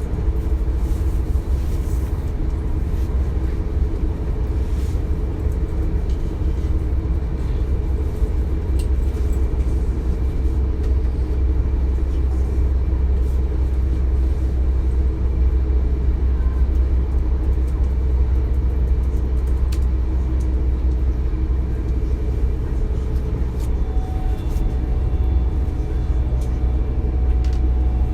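Interior sound of a DB Class 425 electric multiple unit running along the line: a steady low rumble of the wheels and running gear, with a few faint thin tones coming in near the end.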